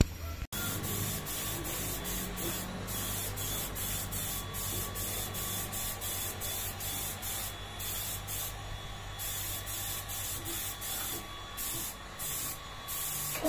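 Gravity-feed air spray gun hissing as it sprays clear top coat, in passes broken by short pauses where the trigger is let off.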